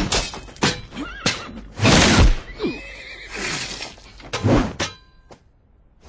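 Sword-fight sound effects: blades swishing and clashing, mixed with short shouted cries from the fighters. It dies away to near quiet about five seconds in, with a faint ringing.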